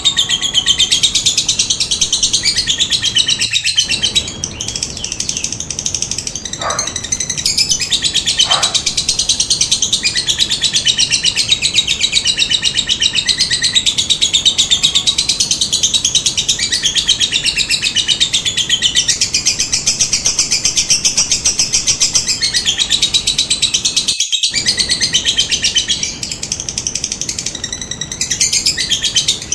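Lovebird chattering in long, unbroken, rapid high-pitched trills, the drawn-out 'ngekek' call used as a lure to set other lovebirds calling. It breaks off briefly about four seconds in and drops out for a split second near the 24-second mark.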